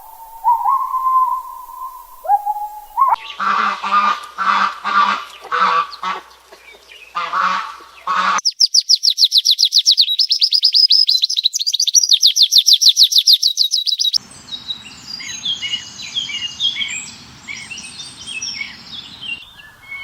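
Bird calls in a run of short clips: a series of separate honking calls, then a loud, fast, high-pitched trill lasting several seconds, then lighter chirping.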